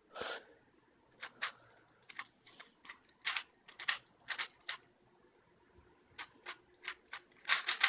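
Rubik's cube being speed-solved by hand: quick, irregular plastic clicks and clacks as the layers are turned, in short flurries with brief pauses between.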